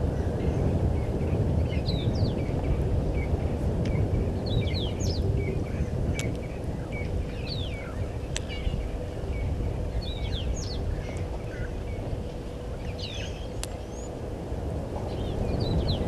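Wild birds calling repeatedly with short chirps and quick falling whistles, over a steady low rumbling noise.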